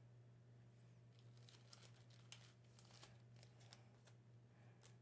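Faint rustling and a series of soft clicks from trading cards being handled, over a steady low hum.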